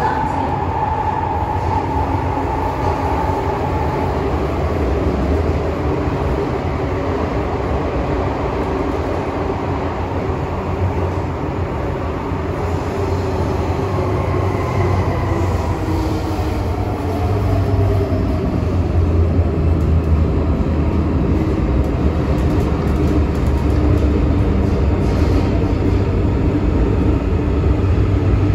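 Hong Kong MTR M-train (Metro-Cammell EMU) running in a tunnel, heard from inside the car: a steady deep running rumble with high whines from the traction equipment, the so-called 'ghost howl', one of which slides down in pitch about halfway through before the rumble grows louder.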